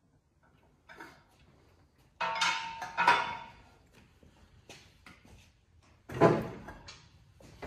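Shop work noises: metal tools and parts clanking and rattling, with a loud metallic clatter that rings briefly about two to three seconds in and a heavier clunk about six seconds in, between small clicks.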